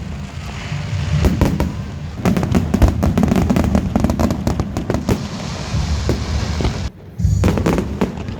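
Fireworks display going off: a dense run of booms and crackling bursts, with a short lull about seven seconds in before more bursts.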